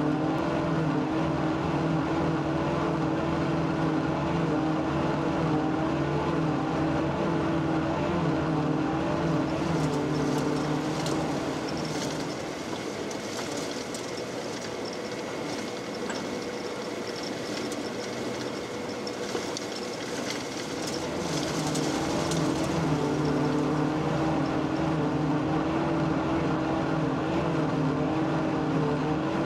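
John Deere 9900i self-propelled forage harvester's diesel engine running steadily at working revs. About twelve seconds in the engine note drops back for roughly ten seconds, leaving a higher hissing and rattling, then comes back as before.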